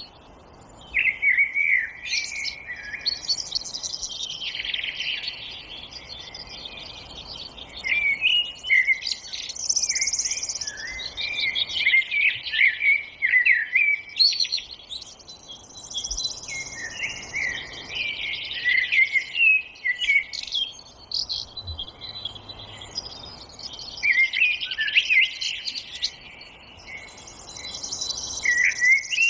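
Several songbirds singing and chirping at once, with overlapping twittering and warbling phrases in a dawn-chorus-like tangle, over a faint background hiss.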